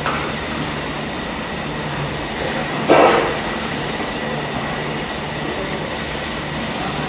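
Steady rumbling noise of a busy kitchen while a long ladle stirs a large steel pot of bubbling sauce, with one loud metallic clank about three seconds in.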